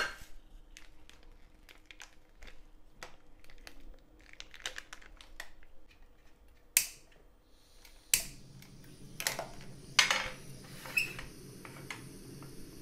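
Kitchen utensils and dishes clicking and tapping lightly, then from about eight seconds a steady low hiss begins, with a few sharper knocks over it.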